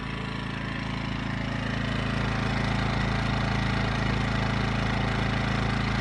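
Westinghouse iGen 2000 inverter generator's small four-stroke engine running steadily in eco mode with no load, a low even hum that grows a little louder over the first couple of seconds and then holds steady.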